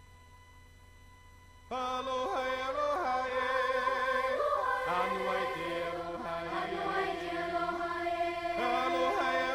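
A faint low hum for a little under two seconds, then music starts abruptly: several voices singing together over accompaniment.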